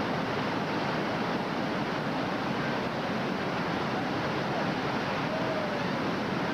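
Whitewater rapids rushing steadily, a continuous even roar of churning river water.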